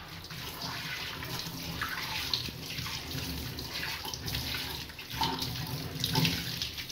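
Tap water running into a stainless steel kitchen sink, with hands splashing under the stream as they rinse dishwashing-powder suds off the scrubbed sink.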